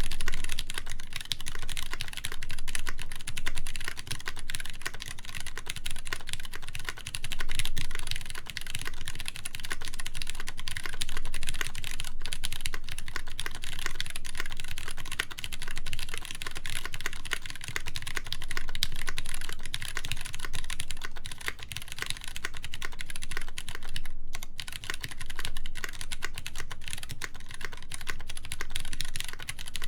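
Continuous typing on a Duck Jetfire mechanical keyboard: lubed Cherry MX Brown tactile switches in a full polycarbonate plate, with GMK keycaps. The keystrokes come in a dense, steady stream, broken by one very short pause late on.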